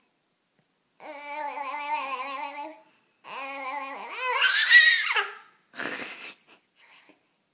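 A five-month-old baby blowing raspberries, buzzing the lips while voicing, in two long stretches. The second rises into a loud, high squeal, and a short breathy splutter follows.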